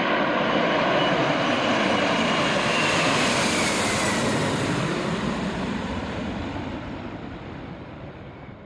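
Jet aircraft passing by: a dense engine rush with a high whine that slides down in pitch about three seconds in, then fades away over the last few seconds.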